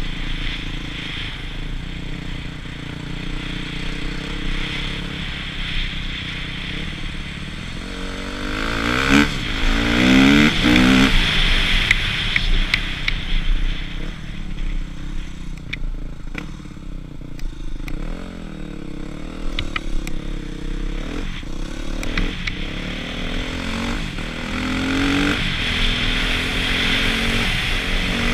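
Husqvarna TC250 single-cylinder four-stroke motocross engine under way, its note climbing and falling as the throttle is opened and shut. The hardest pull comes about nine to eleven seconds in, with further rises later on.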